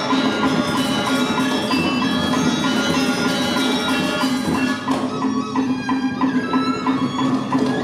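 Balinese gamelan playing topeng dance accompaniment: dense, rhythmic interlocking bronze metallophone and percussion music. The bright high shimmer thins out about five seconds in.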